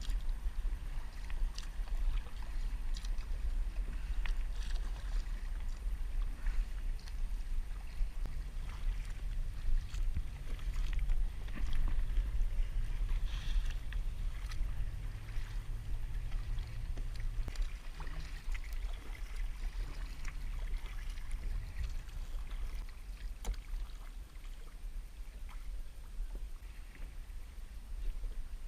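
Water lapping and sloshing around a kayak, with scattered light knocks and taps and a steady low rumble underneath.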